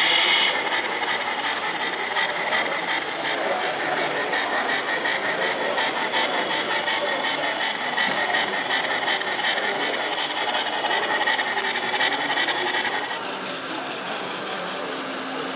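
Model steam locomotive running along layout track: a steady whir of its small motor and wheels over a murmur of voices. The whir stops about 13 seconds in.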